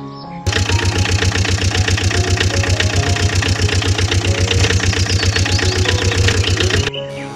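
Small truck's engine running with a rapid, even knocking beat, starting suddenly about half a second in and cutting off suddenly near the end.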